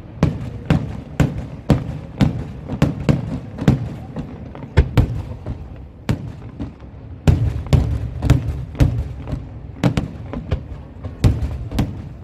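Aerial firework shells going off in a rapid string of sharp thuds, about two a second over a low rumble, with a short lull a little past the middle.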